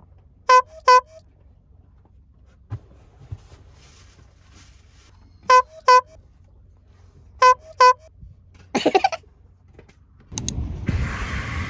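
A car horn tooting twice in quick succession, three times over, each toot a short beep. A short rough burst follows near 9 s, and about a second later a louder steady rushing noise sets in.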